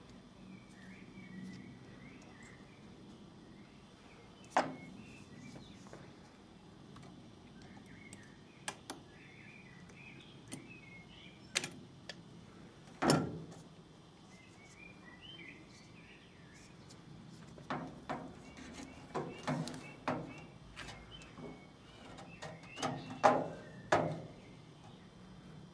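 Sharp clicks and knocks of hands and pliers working on a washing machine inlet valve, fitting its hose clip and pushing spade connectors onto its terminals, sparse at first and coming thick and fast in the second half. Birds chirp faintly in the background.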